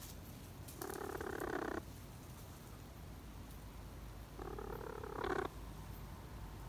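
A young hen, lying in a dust bath, gives two short calls, each about a second long: one about a second in and another about four and a half seconds in.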